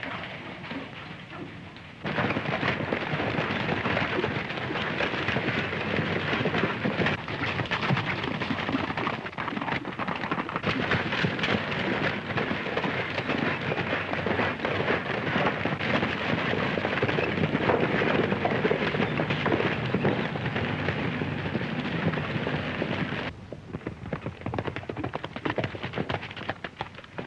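Herd of horses galloping: a loud, dense rumble of many hoofbeats that starts suddenly about two seconds in. In the last few seconds it drops to the quieter, sparser hoofbeats of a couple of riders.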